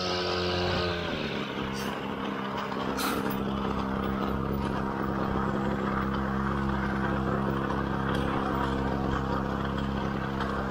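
Brush cutter engine dropping from high revs to idle about a second in, then idling steadily. A couple of faint clicks are heard early.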